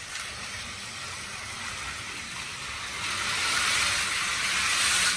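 Battery-powered plastic toy train, a long ten-car freight set, running along plastic track: a steady whirring of its motor and wheels, louder from about three seconds in.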